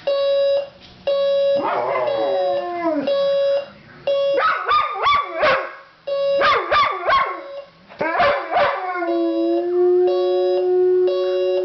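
Electronic alarm clock beeping in repeated on-off bursts while a dog howls along to it. There is a falling howl about two seconds in and a run of short, wavering yelping howls from about four to nine seconds in. One long steady howl follows near the end.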